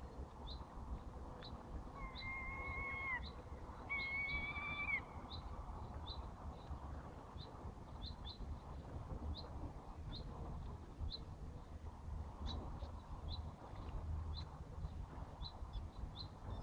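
A bird chirping over and over, a short high chip roughly once or twice a second, with two longer held even-pitched calls a couple of seconds in, over a steady low background rumble.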